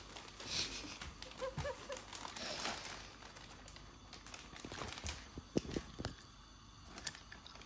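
Plastic shopping bag rustling and crinkling as it is handled with a cat moving about inside it. The rustling is dense for the first few seconds, then thins to scattered sharp crackles and taps.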